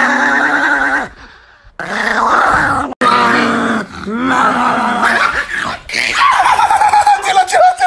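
Small dog growling and grumbling in play, in several pitched stretches that rise and fall, ending near the end in a long falling whine that wavers.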